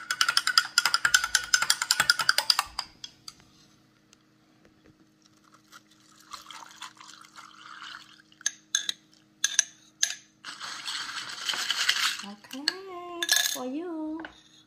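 Metal spoon stirring fast in a tall glass of iced coffee, clinking rapidly against the glass for about three seconds. Later the coffee is poured over ice into another glass, two pours with scattered clinks of ice and glass between, and a brief voice near the end.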